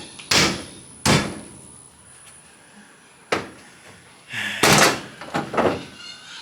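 A series of sharp knocks and bangs, about five, with the loudest cluster between four and a half and five seconds in.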